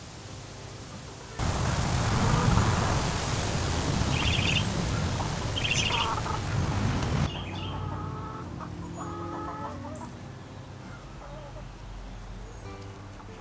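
Backyard hens clucking softly in short, low calls. For several seconds in the middle a loud rushing noise covers them, with two short, high chirps from another bird.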